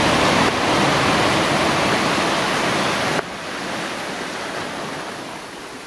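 Small sea waves breaking and washing over a rocky shore close by, a loud, steady rush that cuts off suddenly about three seconds in to a quieter, even wash of sea.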